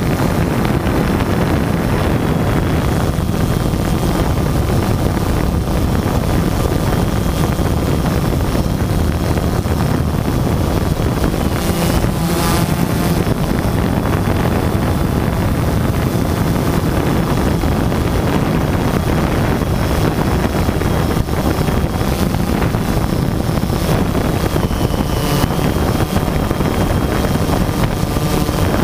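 DJI Phantom 2 quadcopter's four electric motors and propellers buzzing steadily in flight, heard close up from its onboard camera, with wind rushing over the microphone. A thin high motor whine runs through it and shifts in pitch a couple of times.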